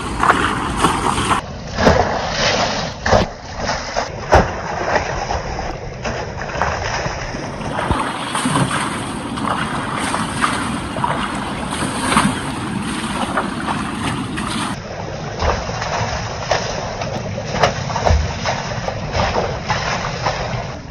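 Buckets of river water thrown against tractors standing in the river: repeated splashes and sloshing over the steady rush of moving water.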